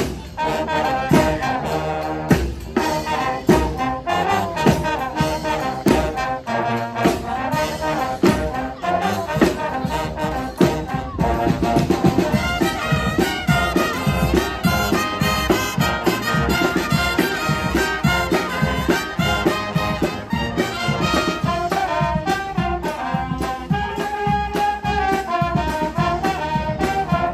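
Street brass band playing live: trumpets, trombones and saxophones over a steady drum beat. About twelve seconds in the horns take up a busier, higher melody.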